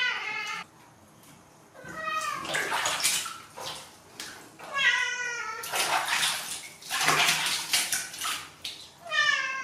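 Adult cat meowing several times in protest while being bathed in a basin of water. Each cry falls in pitch. Between the cries, hands splash and slosh the water through its fur, loudest in the middle of the stretch.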